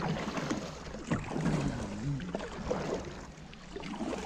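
Double-bladed kayak paddle dipping and splashing in the water, stroke after stroke, as a kayak is paddled along at a steady pace.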